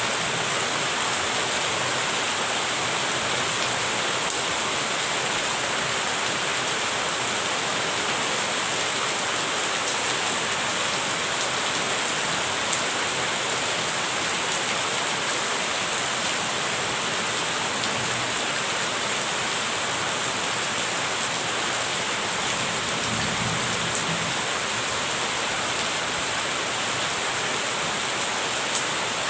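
Steady, even rain falling, with an occasional sharper drop hit.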